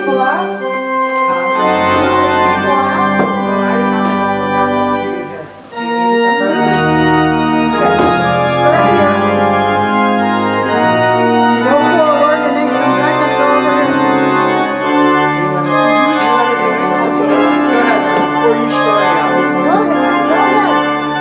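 Church organ playing the postlude after the dismissal: long held chords over a sustained deep pedal bass, with a brief break about five seconds in before it resumes. People talk quietly underneath.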